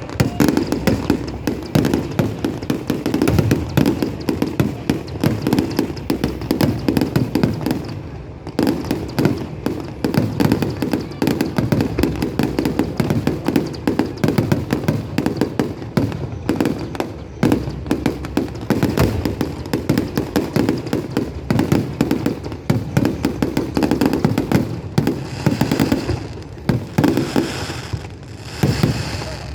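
Aerial fireworks going off in a dense, continuous barrage: booms and crackling bursts following one another many times a second with hardly a gap.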